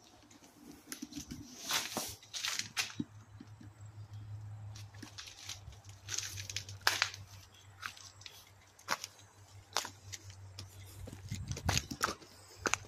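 Footsteps crunching and crackling over dry leaves, twigs and debris, in irregular snaps and crunches, over a faint low steady hum.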